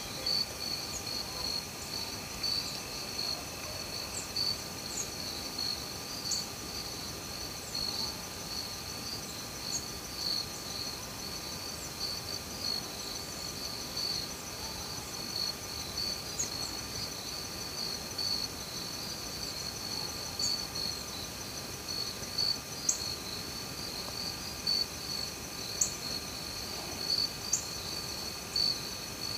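Steady insect chorus: a continuous high, finely pulsing trill, with brief high chips every few seconds.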